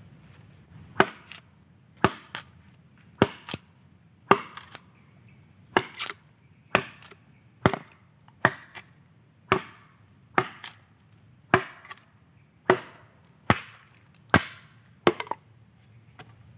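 Machete chopping into the wooden trunk of a standing sapling: sharp strikes about once a second, some in quick pairs, over a steady high insect chorus.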